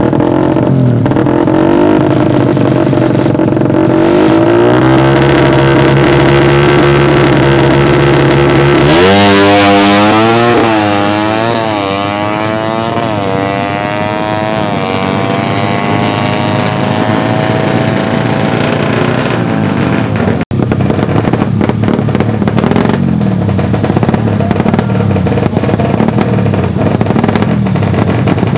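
Suzuki Satria FU 150 drag bikes' single-cylinder four-stroke engines, running at steady high revs for several seconds. About nine seconds in, a bike launches, its pitch climbing and dropping again and again as it shifts up through the gears and fades away. After a sudden break, an engine revs in short, uneven throttle blips.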